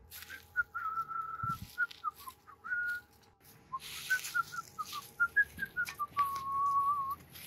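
A person whistling a tune of short notes and two long held ones, over the scrape and crunch of a spade cutting into leaf-covered turf.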